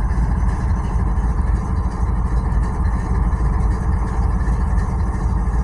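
Diesel locomotive engine idling: a steady low rumble.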